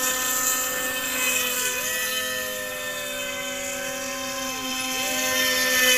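Radio-controlled speedboat's motor whining at a high pitch over the hiss of water. The whine dips and climbs back twice.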